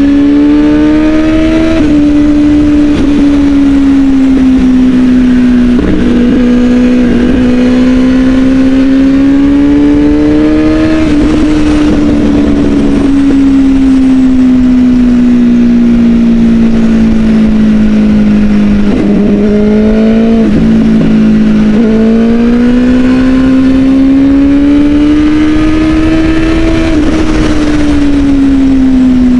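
Kawasaki ZX-10 1000 cc inline-four sportbike engine at speed on the open road, heard from the rider's position. Its revs climb and fall, with the pitch dropping sharply a few times between stretches of steady pull.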